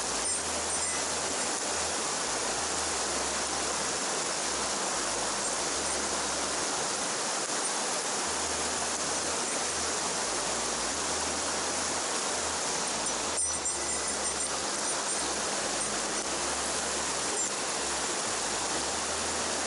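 Mountain stream water rushing steadily over rocks, with one brief click about 13 seconds in.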